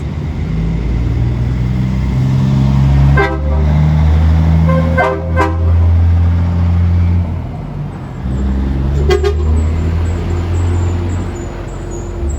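A big truck honking its horn while its engine rumbles loudly. There are a few short honks, about three, five and nine seconds in, over the engine's steady low drone.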